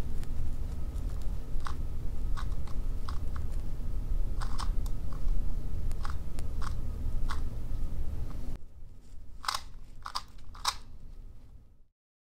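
YJ MGC magnetic 2x2 speedcube being turned through an algorithm: a run of sharp, irregular clicks and clacks as its layers snap into place, over a steady low rumble. The rumble drops away about two thirds through. A few louder clicks follow, then the sound cuts off.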